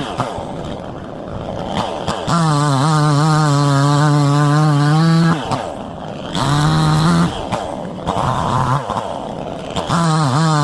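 Two-stroke engine of a budget 20-inch gas chainsaw cutting a small jack pine, revving to full throttle three times (a long burst of about three seconds, a short one, then another near the end) and dropping back toward idle in between.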